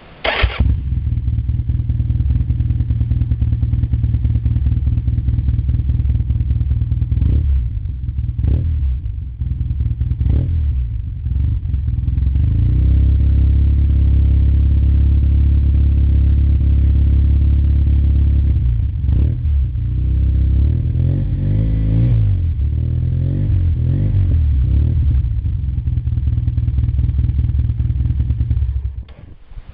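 Yamaha TDM850 parallel-twin engine running loud and deep through a Dominator aftermarket silencer with its dB killer removed. It idles steadily, is blipped on the throttle several times, and is shut off near the end.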